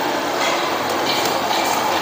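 Steady rushing noise of a stove with a pot of soup cooking on it.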